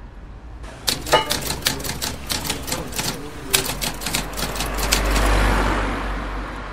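A quick, irregular run of sharp key clacks for about four seconds, then a swelling wash of road traffic noise near the end.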